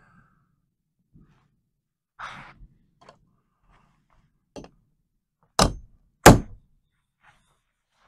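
Steel hammer striking a makeshift firing pin held with pliers against the back of a 3D-printed .22 barrel: a few light taps and handling knocks, then two sharp hammer blows less than a second apart, about halfway through.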